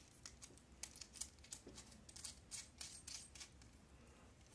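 Faint, scattered small clicks and ticks of metal parts being handled as a chisel tip is fitted onto a soldering iron handpiece and its barrel is screwed on.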